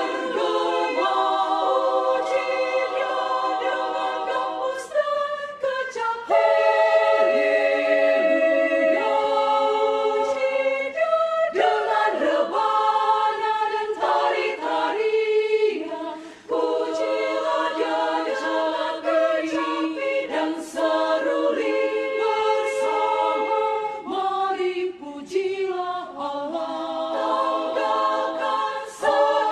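Women's choir singing in harmony: long held chords, with short breaks between phrases.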